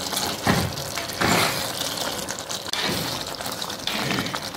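Spatula stirring thick chicken curry in a pan: several wet, sloshing swishes and scrapes through the gravy, over a steady background sizzle.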